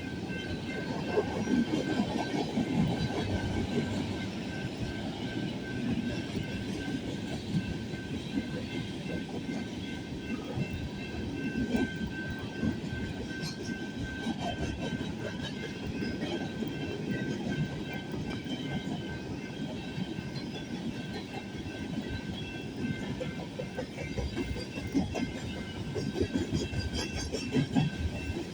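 BNSF train's railcars rolling past, their wheels clattering and rumbling steadily over the rails.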